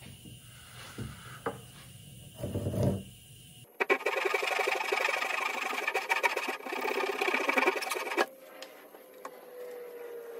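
Flush-cut hand saw sawing off a protruding wooden dowel end, a quick run of back-and-forth strokes for about four seconds, starting abruptly a little under four seconds in after some low handling noise.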